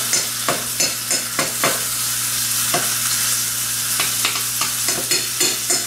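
Hot skillets sizzling: butter melting into bacon grease and steaks searing in cast iron. A cooking utensil clicks and scrapes against the pan at irregular moments.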